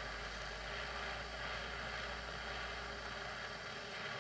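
Propane torch on a disposable cylinder burning with a steady hiss.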